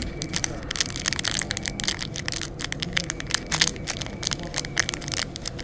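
Thin clear plastic bag crinkling and crackling in the fingers as it is handled, the small white miniature pieces inside shifting, over a steady low rumble.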